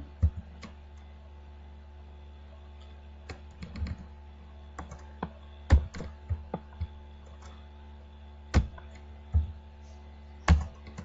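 Computer keyboard being typed on: sparse, irregular key clicks and taps with pauses of a second or more between them, over a steady low hum.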